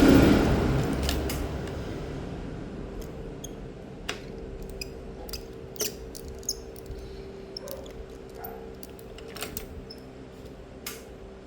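A loud rushing noise fades out over the first few seconds. Then come scattered small clicks and taps of tools and parts being handled on a tablet during a screen repair, over a steady hum.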